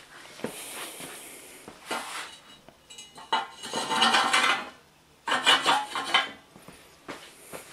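Metal parts being handled: a couple of knocks, then two longer bursts of clanking and scraping, about three and a half and five and a half seconds in.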